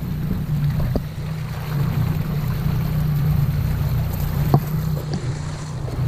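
Outboard motor running steadily at low speed, a low hum under the wash of water splashing along the hull. A short knock sounds about four and a half seconds in.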